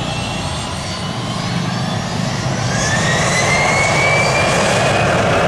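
Gulfstream business jet's twin jet engines running at high power as it rolls down the runway on its takeoff run. The loud roar grows a little louder, with a thin whine that climbs steadily in pitch from about two seconds in.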